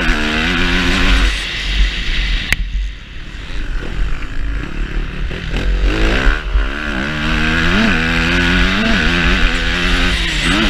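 Yamaha YZF four-stroke motocross bike engine revving up and falling back again and again as the rider works the throttle and gears, with the engine dropping off briefly about two to four seconds in. Wind buffets the microphone, adding a heavy low rumble.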